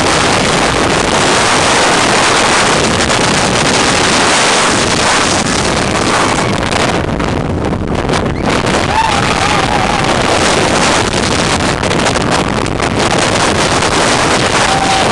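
Wind rushing loudly over the microphone of a camera held on a moving roller coaster (Steel Dragon 2000), mixed with the train's running noise. A short wavering cry rises above it about nine seconds in.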